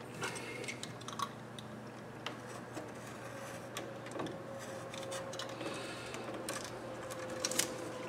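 A knife slitting and scraping the plastic sheathing off electrical cable, heard as faint scratching with scattered small clicks and the rustle of the cable being handled.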